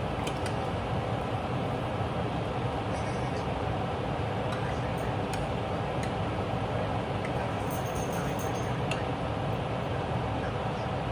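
A steady background hum with a few light clinks and scrapes of a metal serving spoon against a glass casserole dish and a ceramic plate as food is dished up.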